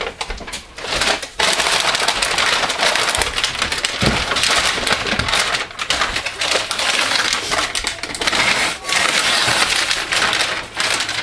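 Paper lining crinkling and rustling as it is peeled and crumpled off freshly unmolded loaves of cold process soap. The crackling goes on almost without a break, with a few short pauses.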